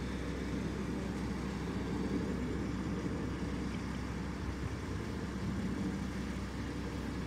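Diesel engine of a 100-ton mobile crane running steadily, a low even hum, while the crane holds a large steel water tank suspended on its hook.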